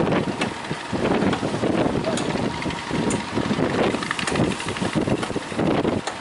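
Strong wind buffeting the microphone over a running speedboat engine, rising and falling unevenly.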